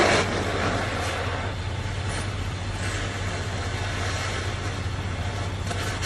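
Oxy-fuel cutting torch hissing steadily on its preheat flame between cuts on steel pipe, after the louder cutting-oxygen jet drops off just after the start. A steady low hum runs underneath.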